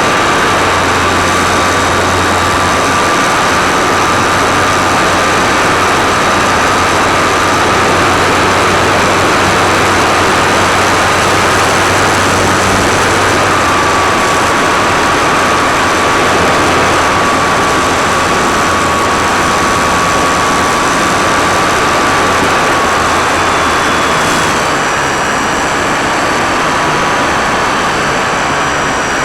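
Electric motor and propeller of an E-Starter RC airplane whining steadily in flight, with wind rushing over an onboard camera's microphone. The pitch steps down slightly about halfway through and drops again near the end as the throttle eases.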